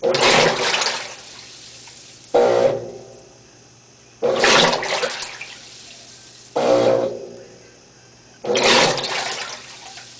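GE Moffat washing machine sending water rushing and sloshing in the tub in regular surges, one about every two seconds, each starting suddenly and fading away, over a faint steady hum.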